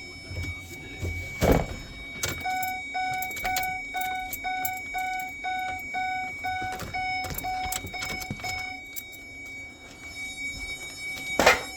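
Van's dashboard warning chime beeping rapidly, about two and a half beeps a second, for about six seconds before settling into a steady tone. There is a sharp knock about a second and a half in and another near the end.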